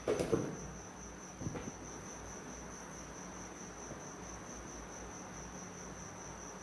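A cricket's steady high-pitched trill, pulsing slightly. In the first second and a half come a few light clicks and rustles of alligator test clips being handled.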